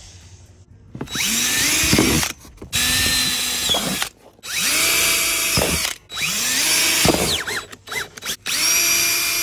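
Cordless drill boring screw holes through a car's front splitter. It makes five short runs, each spinning up in pitch and then holding steady, with brief pauses between.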